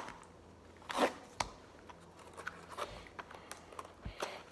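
Handling noise from a small Lego set box being opened: a few short, sharp rustles and clicks of the packaging, the strongest about a second in, and a low thump near the end.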